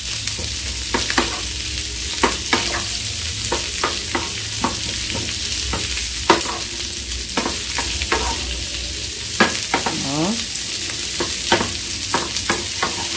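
Carne de sertão (salted dried beef) and sliced onions sizzling steadily in a frying pan while a spatula stirs them, scraping and tapping against the pan many times in irregular clicks.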